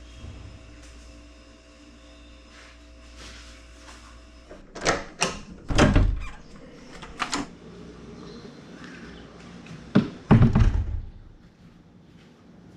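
A series of sharp knocks and thumps, about six in all, bunched in the middle and near the end, over a faint steady hum that stops about a third of the way in.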